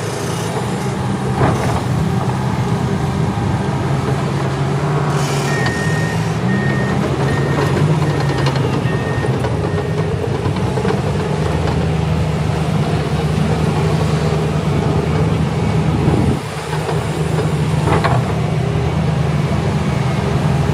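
Heavy diesel engine of a Cat 6015 hydraulic excavator running steadily under load. A few seconds in comes a run of short, evenly spaced beeps from a backup alarm, with a burst of hiss and a few knocks from the working machinery.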